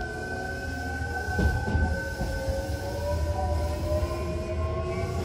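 Hankyu Kyoto Line electric train accelerating, heard from inside the car: the traction motors' whine rises slowly in pitch over a low running rumble, with a steady high tone alongside.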